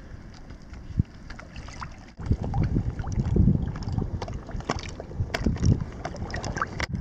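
Shallow water sloshing and splashing around a wader's legs and a scoop net as it is moved through the water, with low irregular rumbling on the microphone and scattered small clicks and knocks.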